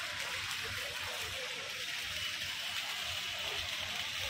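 Small fountain jets splashing into a shallow ornamental pool: a steady hiss of falling water.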